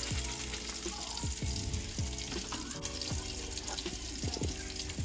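A spoon stirring instant mashed potato flakes into hot liquid in a saucepan, a wet sound with repeated soft strokes. Music plays underneath.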